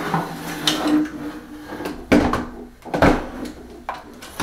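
Knocks and bumps of a Bambu Lab P1P 3D printer's case being tipped over onto its side on a wooden bench, the loudest two about two and three seconds in.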